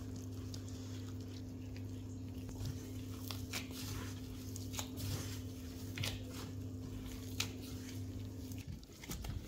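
Soft cocoa bread dough being worked into a ball, with sticky squishing and scattered small ticks. A steady low hum runs underneath and cuts off shortly before the end.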